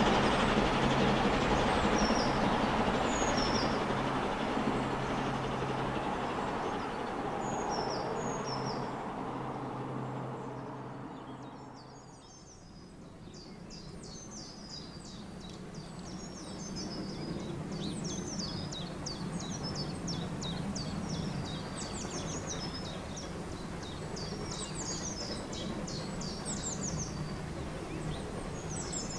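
The rumble and low hum of a train that has just passed fade away over about twelve seconds, with birds chirping. Then birds sing busily over the faint, slowly growing rumble of a distant steam train approaching.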